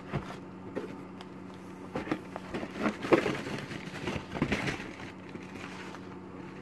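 Cardboard and plastic packaging being handled as a monitor stand is worked out of its box one-handed: irregular rustling, scraping and light knocks, busiest in the middle, over a faint steady hum.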